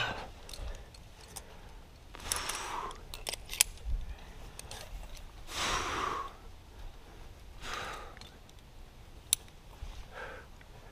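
A lead climber's heavy breathing close to the microphone: about four forceful exhalations a couple of seconds apart, with a few sharp clicks in between.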